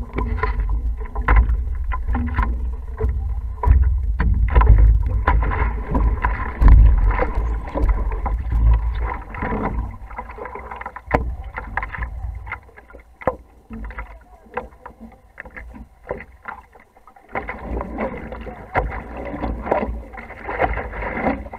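Water splashing and lapping against a stand-up paddleboard as it is paddled, with many sharp little splashes. A low rumble runs through the first half, and it goes quieter for a few seconds about two-thirds of the way through before the splashing picks up again.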